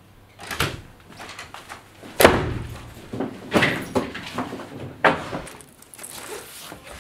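A door opening and banging shut, the loudest thud about two seconds in, followed by more knocks and thuds and the rustle of a backpack being handled.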